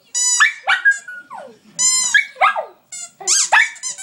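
Dog 'yodeling': a quick run of short, high-pitched howling yelps, several of them sliding sharply down in pitch and breaking off between calls.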